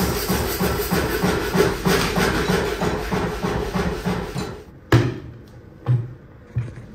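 A steady rhythmic beat stops about four and a half seconds in. A sharp crack follows, then two dull thumps: a broken electric motor on the end of a steel rod striking a concrete floor.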